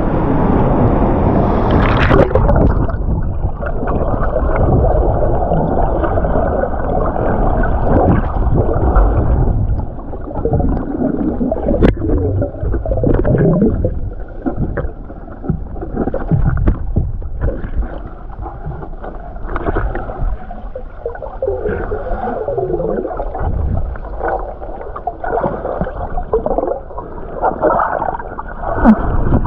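Waterfall water recorded underwater: a muffled, heavy rush with gurgling and bubbling. It is loud and steady for the first nine seconds or so, then drops and turns choppier, with short sweeping gurgles.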